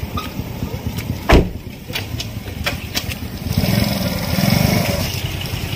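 Small motorcycle engine running, swelling louder for a second or so near the four-second mark, with one sharp loud thump just over a second in.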